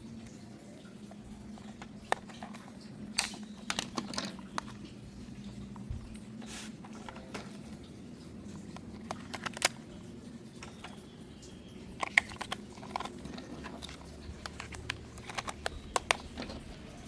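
Handling of a toy and its packaging: scattered light clicks and taps over a faint steady hum, thickest in a few short clusters.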